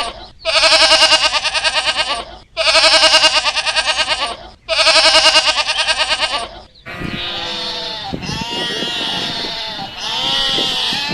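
Bleating farm animals: three long, quavering bleats about two seconds each, one after another. From about seven seconds in, many bleats overlap at once, as from a flock.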